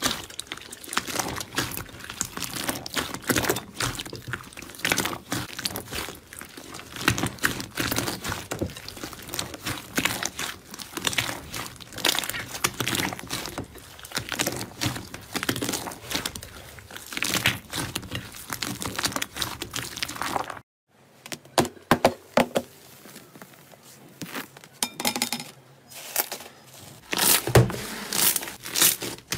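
Hands squishing and kneading glossy blue slime in a bowl, a dense, continuous stream of squelching clicks and pops. About two-thirds through it cuts off abruptly; after a short quiet, hands squeezing thick yellow slime give sparse pops that build into louder crackling near the end.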